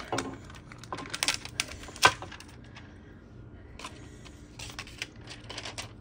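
Hands handling crafting plastics: crinkling transfer tape and vinyl sheet with small clicks, and one sharp hard knock about two seconds in as the clear acrylic milk-carton bottle is stood upright on the cutting mat. Softer rustles follow.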